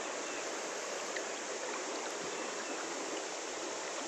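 Shallow creek water flowing, a steady rushing hiss.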